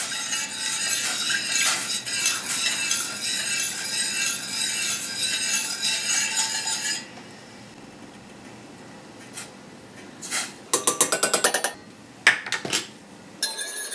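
Wire whisk stirring broth in a stainless steel saucepan, rattling and scraping against the pan in a steady back-and-forth rhythm for about seven seconds. It then goes quieter, with a fast run of clicks and taps near the end.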